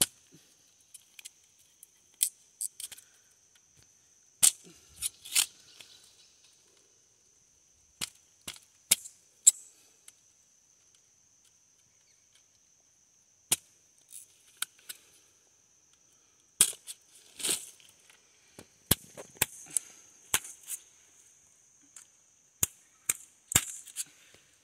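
Machete (terçado) cutting the thin binding wires on a coil of smooth galvanized fence wire: a string of about twenty sharp, irregular clicks and snaps, some in quick clusters.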